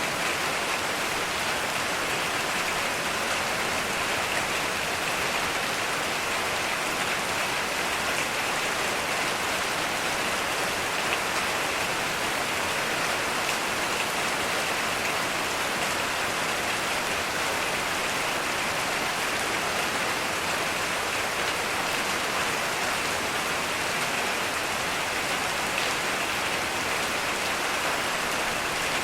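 Heavy rain falling steadily, an even hiss of drops on surfaces with no breaks.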